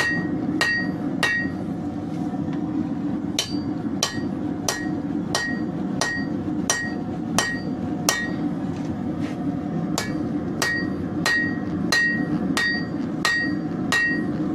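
Hand hammer blows on hot leaf-spring steel over an anvil, each with a bright ring, in an even rhythm of about one and a half blows a second, with a short break about a second in. The steel is cooling and getting hard to move.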